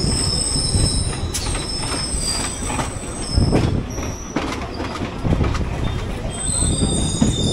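Local passenger train running on the rails: a steady rumble with scattered knocks from the wheels. A thin, high wheel squeal is strong at first, fades after about a second, and comes back near the end.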